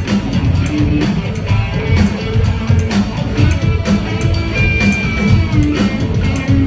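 A live rock band playing, with electric guitar and drum kit over a steady beat, recorded from far back in the audience. A single high note is held for about a second near the middle.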